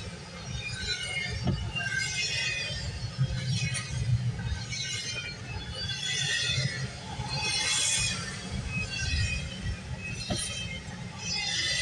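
Double-stack intermodal freight train rolling past, heard from inside a car: a steady low rumble of wheels on rail, with high-pitched wheel squeal coming and going every second or so. Two short clicks stand out, one about a second and a half in and one near the end.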